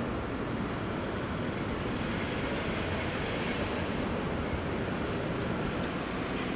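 Steady low rumble of a freight train on the move, a DE10 diesel locomotive with coal wagons, with no sharp clanks or horn.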